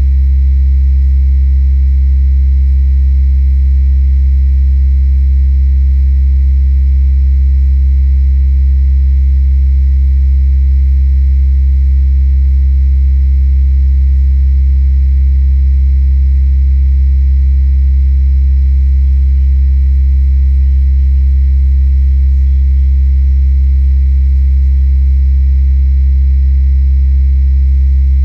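Steady, unbroken low electrical hum and rumble, with a faint rapid pulsing in its upper tone. The recordist attributes it to the nearby power grid. It is heard through the walls of a safe.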